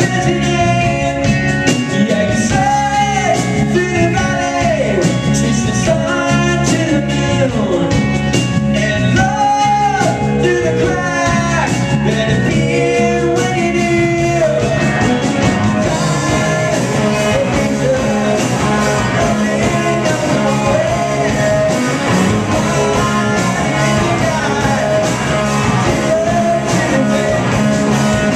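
Live rock band playing loud: several electric guitars through amplifiers and a drum kit, recorded from the audience in a small club. The sound thickens and brightens a little past halfway.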